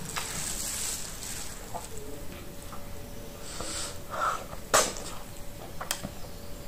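Close-miked mouth sounds of eating fufu with peanut butter soup by hand: a long breathy slurp as a fingerful goes into the mouth, then chewing with wet lip smacks and clicks, the loudest a sharp smack about three-quarters of the way through.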